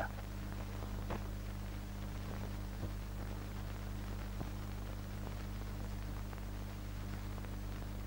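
Steady electrical hum and hiss from an old film soundtrack, with a few faint clicks about one, three and four and a half seconds in.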